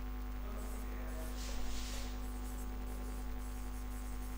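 Steady electrical mains hum, with a brief scratch of writing on the board about one and a half seconds in.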